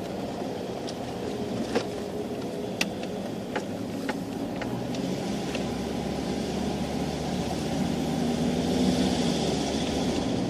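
Car engine and tyre noise heard from inside the cabin while driving, a steady rumble that grows a little louder from about halfway through. Several sharp clicks come at uneven intervals in the first half.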